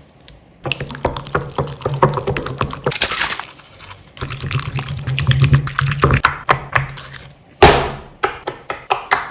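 Slime being crushed: dense crackling and clicking with wet, liquid-like noises, and a steady low hum in two stretches. Near the end comes a loud noisy burst, then a few sharp clicks.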